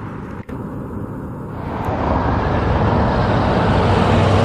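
Road traffic noise: a steady rumble of vehicles, with a brief dropout near the start, then growing louder from about a second and a half in as traffic nears.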